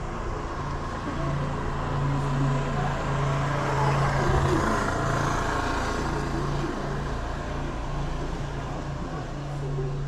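Street traffic: a vehicle passing, its noise swelling to a peak about four to five seconds in and then fading, over a steady low hum with short breaks.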